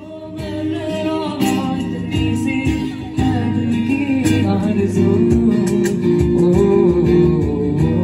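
Music: a singer with guitar accompaniment.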